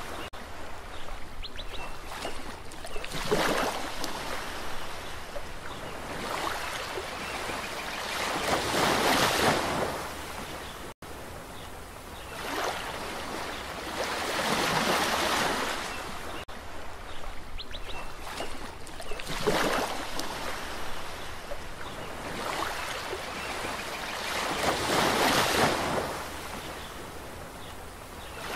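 Ocean waves breaking and washing ashore, a swell of surf noise every five or six seconds, with a momentary drop-out about eleven seconds in.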